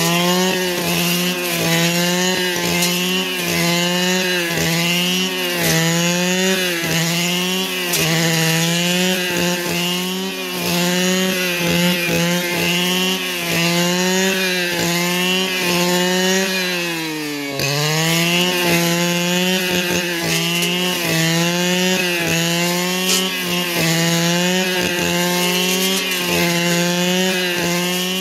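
Two-stroke brush cutter running at full throttle, its engine note sagging briefly every second or two as the line or blade takes the load of cutting, then picking back up. About 17 seconds in it bogs deeper and recovers.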